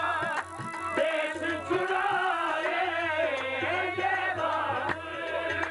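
Qawwali music: voices singing over steady held harmonium-like tones, with a tabla beat.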